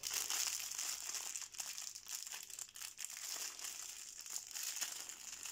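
Thin clear plastic packaging crinkling and rustling in the hands as a bundle of pompom trim is unwrapped and turned over, a continuous run of small crackles.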